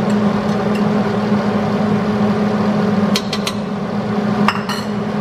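Kitchen range hood fan running with a steady hum. A spoon clicks against a bowl three times about three seconds in and twice more near the end.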